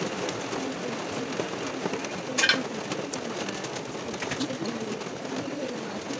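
Kitchen knife blade scraping and clicking against garlic cloves as they are peeled by hand, with one louder, sharper scrape about two and a half seconds in, over a steady hiss.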